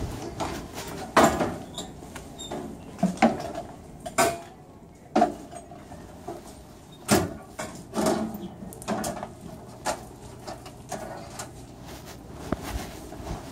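Scattered knocks and clatters, roughly one every second or so, with the loudest near the start and about seven seconds in, over a steady low hum.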